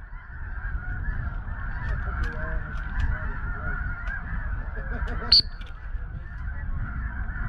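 A large flock of snow geese calling, many high yelps overlapping into a continuous chatter, over a low rumble. One sharper, higher call stands out about five seconds in.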